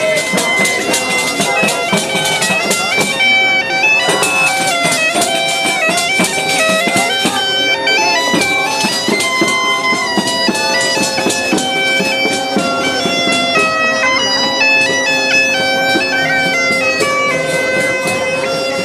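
Bagpipe playing a lively folk tune over a steady drone, with regular percussive beats underneath.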